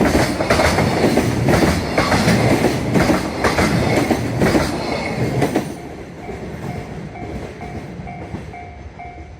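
Freight train's wagons rolling past with a clickety-clack of wheels over rail joints. The last wagon passes about six seconds in and the noise falls away, leaving the level-crossing alarm ringing about twice a second.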